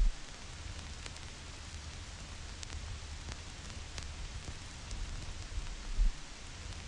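Vinyl record surface noise: a steady hiss with scattered crackles and sharp pops, over a low rumble. Two louder low thumps, one at the start and one about six seconds in.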